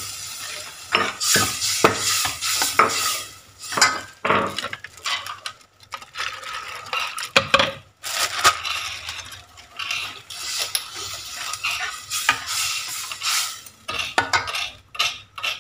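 Stainless steel ladle stirring coconut milk into curry in a stainless steel pot, scraping and clinking against the pot's sides and rim at irregular moments, with a quick run of clicks near the end.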